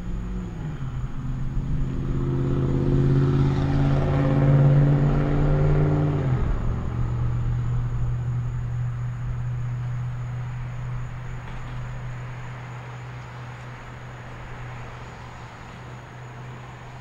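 A motor vehicle passing by: its engine grows louder, drops in pitch about six seconds in as it goes past, then fades away as a low steady hum.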